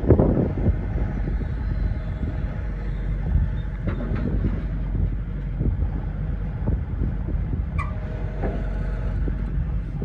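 Hitachi ZX130LCN-6 14-tonne tracked excavator running, its diesel engine held steady while the boom, arm and bucket are worked on the hydraulics, with a few clunks and knocks, the loudest right at the start and another about four seconds in.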